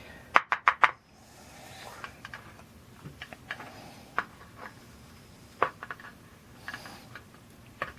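Small metal clicks and ticks from a gutted Master Lock 6835 padlock as its pin springs are dumped out: a quick run of four clicks near the start, then scattered single ticks.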